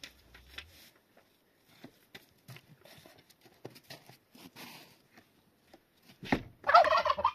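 Domestic turkey tom in strutting display, gobbling loudly in a rapid rattling call near the end. A sharp short sound comes just before the gobble, and faint scattered crackles run before it.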